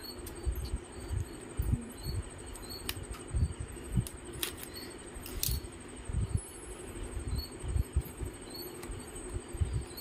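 Hands handling and opening a small cardboard RAM retail box: soft bumps and rustles, with a few sharp clicks around the middle. A steady, high-pitched pulsing trill runs underneath.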